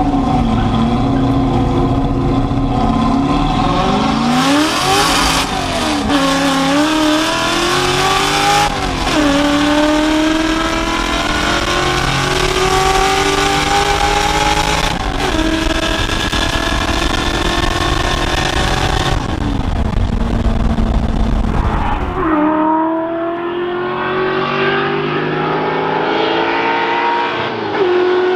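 Ford F100 pickup's engine through a Black Widow Widow Maker 10 muffler and X-pipe exhaust, accelerating hard through the gears. Inside the cab the pitch climbs and then drops at each upshift, about 5, 9 and 15 seconds in. Some 22 seconds in, the sound changes to the truck heard from outside, revving up again with a shift near the end.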